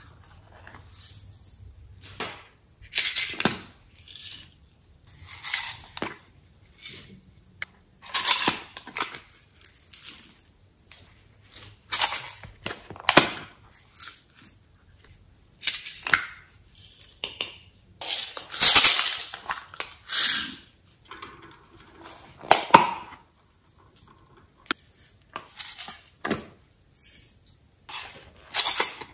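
Sequins and glitter shaken and tapped out of small plastic boxes onto slime in a glass dish, with plastic cases clicking. It comes as a series of short shaking sounds, each about a second long, every two to three seconds.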